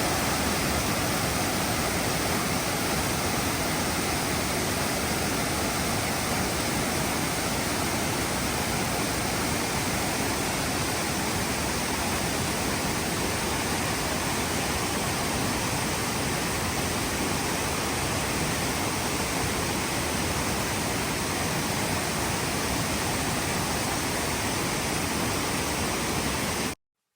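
Waterfall: a steady, even rush of falling water that does not change, cutting off suddenly just before the end.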